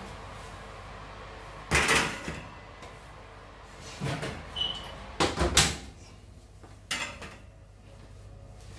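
Metal loaf tins of baked bread set down one after the other on a wire oven rack, with an oven door opening and shutting: a handful of separate clattering knocks and one brief high squeak.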